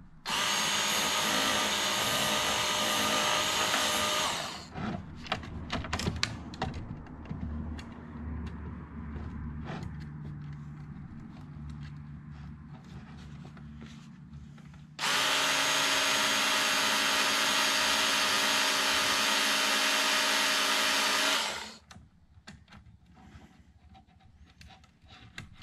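Work Sharp knife and tool sharpener, a small electric belt grinder, running in two stretches of about four and six seconds, grinding the burrs off chainsaw chain links so they will seat in the bar groove. Between the two runs come scattered clicks and knocks as the chain is handled on the bar.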